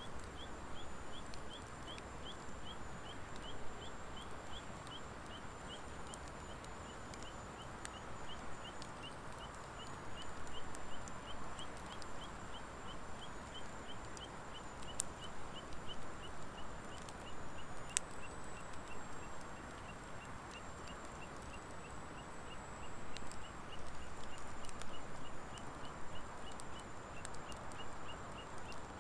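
A wood fire of driftwood and dry hardwood logs burning steadily, with a soft rushing and a few sharp crackles and pops. A steady series of short, high chirps, about three a second, runs under it.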